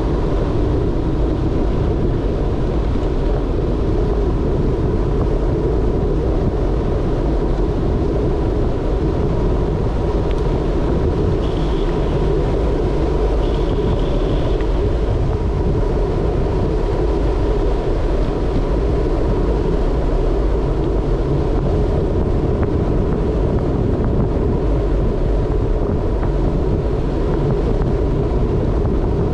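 Steady rumble of bicycle tyres rolling on a coarse chip-seal road, mixed with wind buffeting the microphone as the bike moves along. Two brief faint high squeaks come about twelve and fourteen seconds in.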